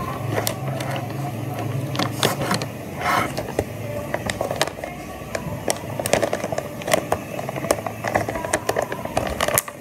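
Plastic pouch crinkling and rustling as it is folded and handled, with many scattered sharp crackles, over a low steady hum during the first few seconds.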